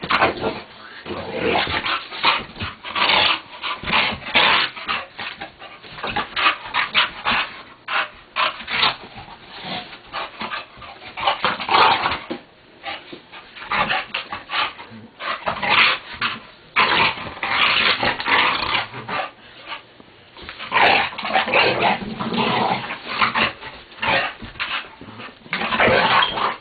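Bulldog growling in rough play while wrestling, a dense string of irregular bursts with short gaps.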